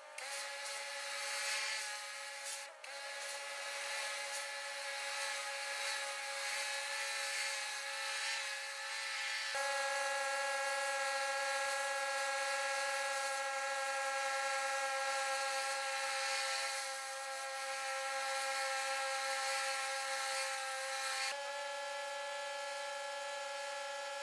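Pressure washer running steadily while cleaning concrete: a constant mechanical whine over a hiss of spray. Its tone shifts abruptly twice.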